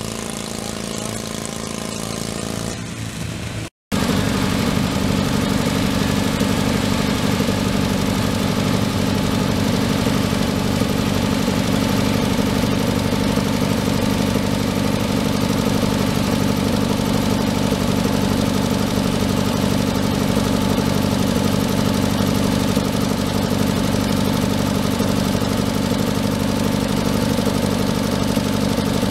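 Garden tractor engine running at a steady, even speed. About four seconds in there is an abrupt cut to it from a quieter engine sound.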